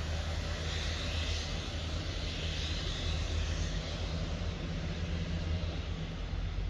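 Class 66 diesel locomotive's two-stroke EMD engine giving a low, steady drone as the train pulls away, easing slightly near the end.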